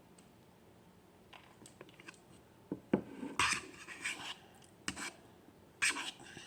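Rough scraping and rubbing in two spells, with a few sharp knocks about three and five seconds in: objects being handled at close range.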